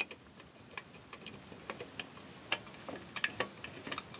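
Screwdriver driving a screw through a steel drive-bay bracket into a hard drive: faint, irregular small clicks and ticks as the screw turns.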